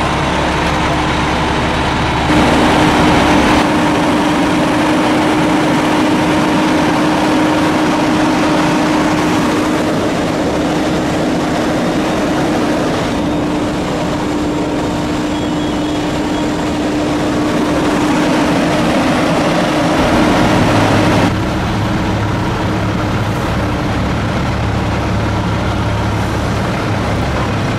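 Fire trucks' diesel engines running steadily: a loud, continuous drone with a constant hum. The sound changes abruptly about two seconds in and again about twenty-one seconds in.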